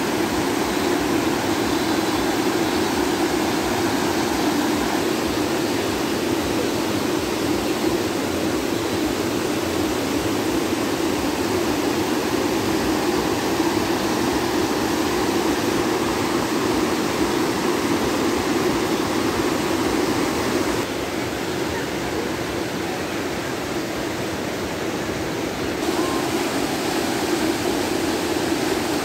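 Shallow mountain river rushing over rocks in whitewater rapids, a steady rush of water that dips slightly in level for a few seconds about two-thirds of the way through.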